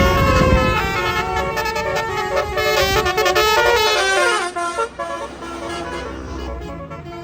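A bus's Basuri telolet multi-tone horn plays a stepping melody of several notes over the low rumble of the bus's engine. The rumble fades about four and a half seconds in, and the horn notes carry on more quietly.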